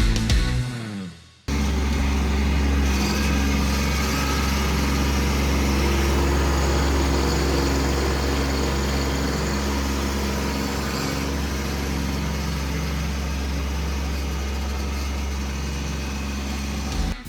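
A Kubota B2301 compact tractor's diesel engine running steadily at an even speed, after a short fade-out of guitar music.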